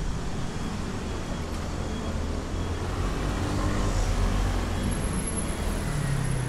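Road traffic: a motor vehicle's engine rumbling as it passes, loudest about four seconds in.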